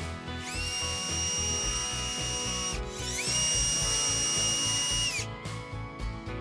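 Power tool motor whining as it spins up, runs steadily for about two seconds and winds down, twice in a row, with a short gap between the runs. Background music plays underneath.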